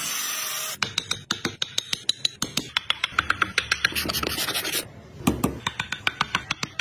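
Hand tool working wood in quick, rasping scraping strokes, about five a second. A short steady hiss comes first, and the strokes pause briefly about three-quarters of the way through.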